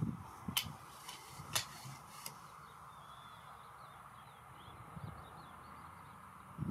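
Four sharp clicks and a few soft low knocks in the first two and a half seconds, then faint short bird chirps in the middle, over a steady background hum.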